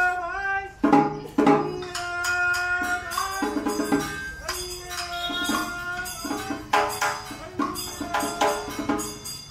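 Traditional ceremonial music: a held, stepwise melody line over frequent percussion strokes.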